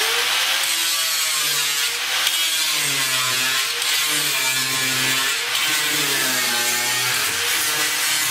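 Handheld angle grinder grinding down stuck steel floor screws that could not be drilled or unscrewed: a continuous grinding, its motor pitch wavering up and down as the disc bites and eases.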